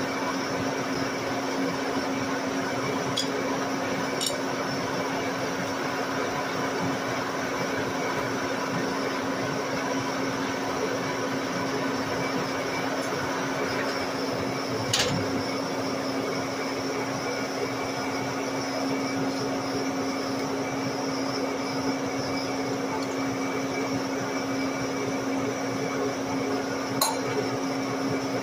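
Metal lathe running steadily, its chuck turning a metal part while the cutting tool takes a cut, a constant machine hum under the cutting noise. A few short sharp clicks sound over it, about four in all.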